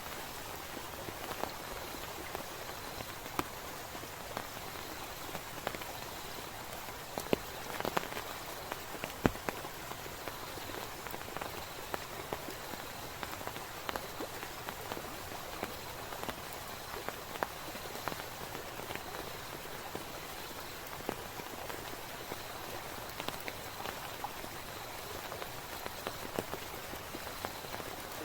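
Steady rain falling, with many scattered sharp drop taps striking close by and a few louder ones about a third of the way through.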